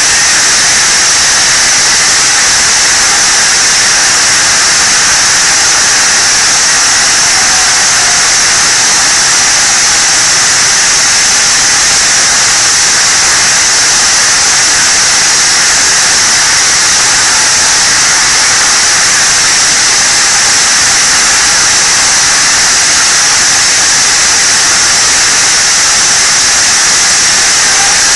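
Loud, steady hissing noise, brightest in the high range and unchanging.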